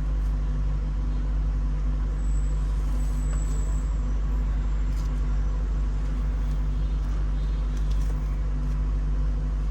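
A steady low mechanical hum, a deep unchanging drone of running machinery, with a few faint clicks.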